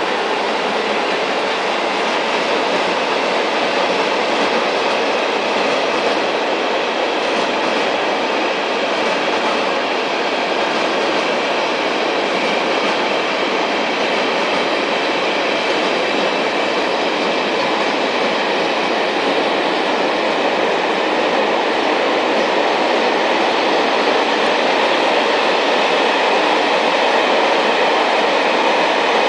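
Freight train of covered and open wagons rolling past: a steady, unbroken noise of wheels on rails that grows slightly louder toward the end.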